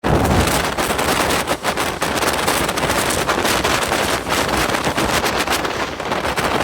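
Express train running at speed, with a rapid, irregular clatter of wheels over the track and heavy wind buffeting the microphone.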